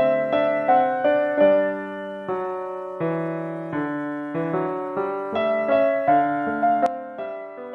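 Background piano music: a slow melody of struck notes and chords, each note fading after it is played.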